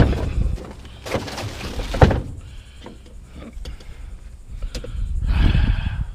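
Knocks and thuds with some rattling and scraping as a sit-up bench is handled and moved; the sharpest knock comes about two seconds in, and a longer, louder scraping stretch near the end.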